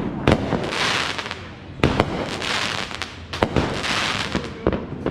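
An aerial fireworks display with shells bursting in sharp bangs, some in quick pairs, at the start, about two seconds in, about three and a half seconds in and near the end. Each bang is followed by about a second of crackling hiss.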